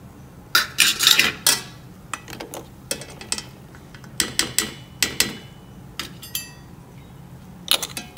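Metal tongs clinking and scraping against a metal pot and silver pooja items as they are lifted out of hot water, in irregular clusters of sharp clinks, a few ringing briefly.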